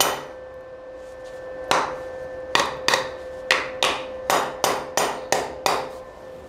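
Hammer blows on a sprocket coupling welded to the end of a Druzhba chainsaw crankshaft, testing whether the weld holds. One strike, a pause, then about a dozen quick strikes, roughly three a second.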